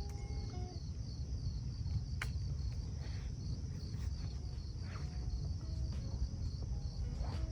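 Crickets chirping steadily in a fast pulsing trill, over a constant low rumble, with a few faint clicks.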